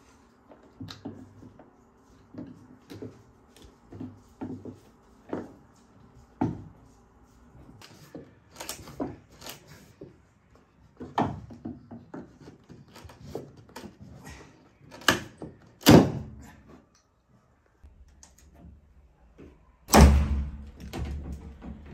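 Irregular taps, knocks and scrapes of a screwdriver and hands working at wooden window trim and water-damaged ceiling plaster. A loud knock comes about three-quarters of the way through, and a heavy thud near the end.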